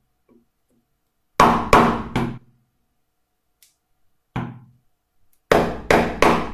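Mallet blows on the handle of a bench chisel chopping down into wood to cut a shallow recess a millimetre or two at a time. There are three quick blows, a single one midway, then three more near the end.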